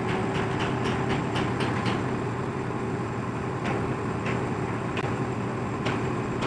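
Steady mechanical drone with a constant hum. Sharp ticks come about four a second for the first two seconds, then only a few scattered ticks.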